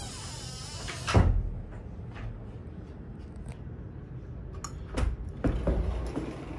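A bathroom door with a bar handle being handled and opened: a few sharp clicks, then two heavy thumps near the end. A louder thump comes about a second in.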